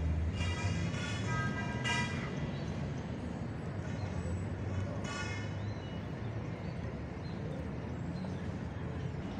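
City street traffic rumbling steadily, with several car horn honks in the first two seconds and a short hiss about five seconds in.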